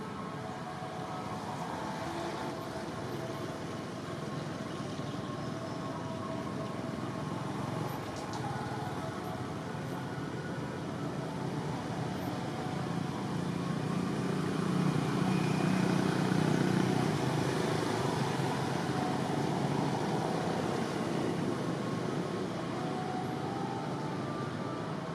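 Steady outdoor background noise of distant road traffic, swelling for a few seconds in the middle as a vehicle passes.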